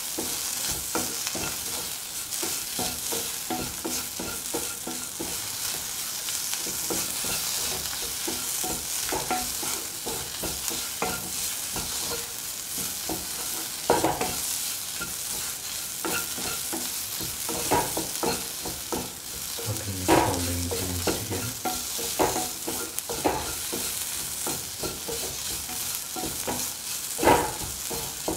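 Chopped shallots, tomato and spices sizzling steadily in hot oil as a spatula stirs and scrapes through them, with a few sharper knocks of the spatula against the pan.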